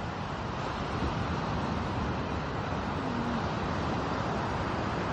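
Steady rushing of wind and ocean surf, with wind buffeting the microphone.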